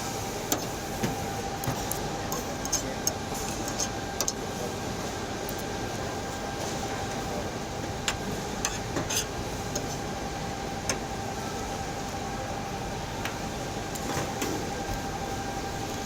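Irregular light clinks of a spoon on a plate during a meal, over a steady hum with a constant tone, like a fan or air conditioner running.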